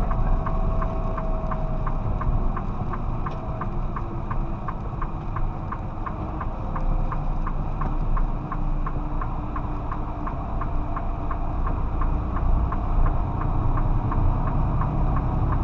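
Tractor-trailer running at road speed, heard inside the cab: a steady low engine and road rumble, with a light, even ticking about three times a second.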